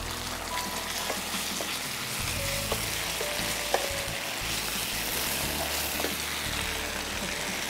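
Deep-fried chicken pieces sizzling in red sauce in a frying pan as a wooden spatula stirs them, with a couple of sharp knocks about three and four seconds in.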